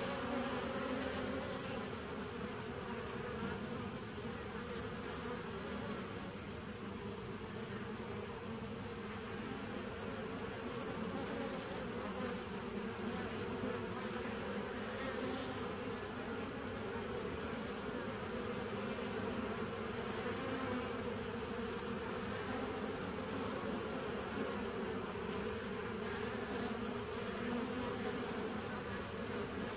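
Honey bees flying in and out at the entrance of a nuc hive: a steady, slightly wavering hum of many wings.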